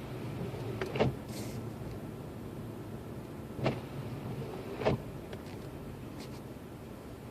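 Inside a Lexus IS250 driving through snow: the car's steady low engine and road hum, broken three times by a short sharp sweep-and-thump. The loudest thump comes about a second in, and the other two come close together later.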